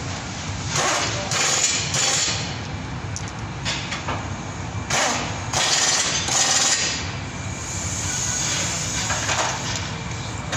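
Rubbing and scraping from a hand and forearm working in an engine bay close to the microphone, in three spells of a second or two each, over a steady low hum.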